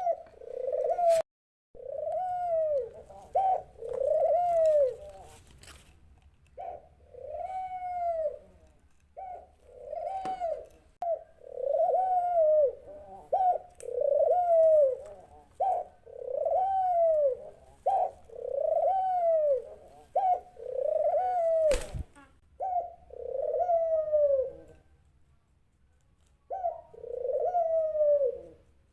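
Dove cooing: a long, steady run of coos, each rising and then falling in pitch, about one a second, with a short pause near the end. A single sharp click about two-thirds of the way through.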